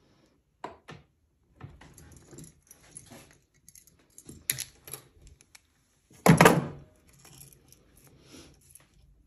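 Links of heavy-gauge silver chain clinking and rattling against each other as the chain is twisted by hand in a bench vise to form curb chain, with a louder clunk about six seconds in.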